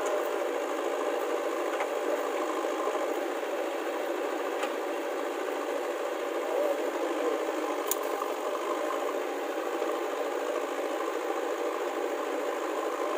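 Diesel engines of a JCB 3DX backhoe loader at work and a Swaraj 744 FE tractor standing by, running steadily with a rattle. A single sharp click about eight seconds in.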